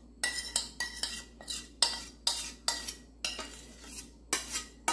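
A utensil scraping and knocking against a saucepan to get the last of the sauce out: short, sharp strokes at an irregular pace of about two a second.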